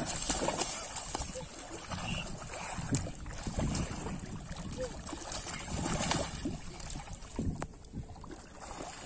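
Shallow water splashing and sloshing in irregular surges as a person wades and runs through a flooded rice paddy and churns the water with his hands.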